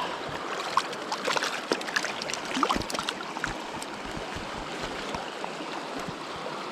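Stream water flowing steadily, with a run of small splashes and clicks close by in the first half.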